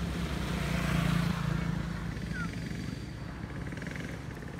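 A motor vehicle's engine running steadily with a low hum, loudest about a second in and then easing off a little.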